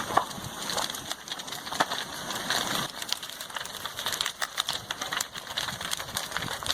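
A house burning as lava flows into it: dense, irregular crackling and popping over a steady noisy rush.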